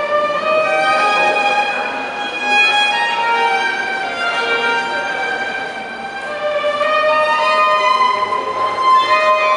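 Solo violin played with a bow, a slow melody of long held notes moving step by step.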